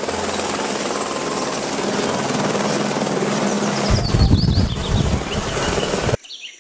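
Helicopter in flight: a fast, even rotor beat with a steady high turbine whine above it, a heavier low rumble swelling about four seconds in, and the sound cutting off suddenly near the end.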